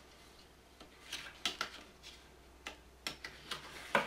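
Plastic channel cover strip being pressed by hand into the slot of an aluminium V-slot extrusion, snapping in as it goes: a string of short, sharp clicks at irregular spacing.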